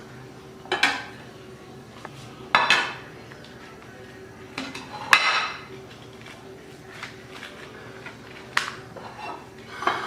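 Kitchen utensils clinking and scraping against a plate or pan, about five separate clatters a second or two apart, as pizza slices are handled.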